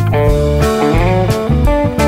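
Background music: a guitar playing a melody with bending notes over a bass line.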